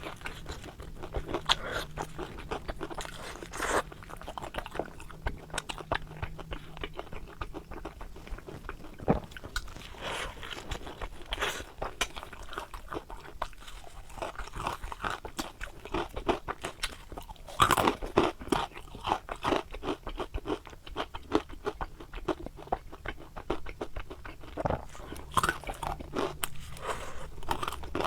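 Crunchy biting and chewing of deep-fried, batter-coated stuffed eggplant boxes: a dense run of crisp crunches, with a few louder bites.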